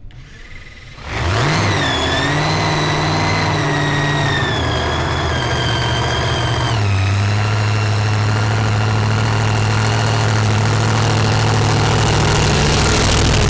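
Supercharged V8 of a Chevrolet doorslammer drag car firing up about a second in and running at a lumpy idle, with a high blower whine over the exhaust note. About seven seconds in the idle drops to a lower, steadier note.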